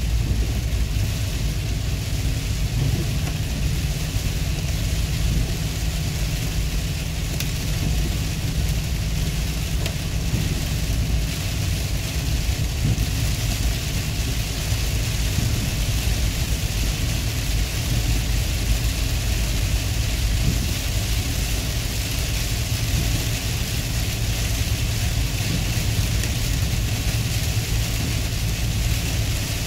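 Steady noise inside a car's cabin while driving in rain: a low road and engine rumble under an even hiss of rain on the windshield and tyres on the wet road.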